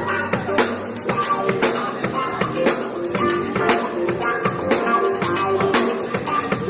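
Church praise band playing an instrumental passage: a drum kit keeping a steady beat under guitar and other sustained instruments.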